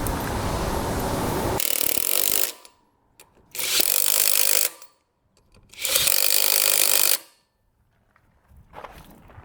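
Compressed air hissing in bursts while new ATV tires are seated and filled on their rims: a long hiss, then two bursts of about a second each, separated by silent pauses.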